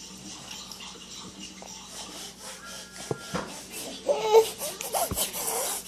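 A baby breathing hard and raspy through his nose, then starting to fuss with short whiny cries from about four seconds in.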